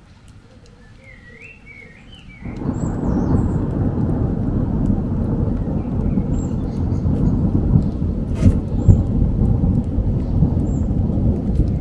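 Thunder: a loud rumble breaks in suddenly about two and a half seconds in and rolls on, low and heavy, with a sharper crack a few seconds later.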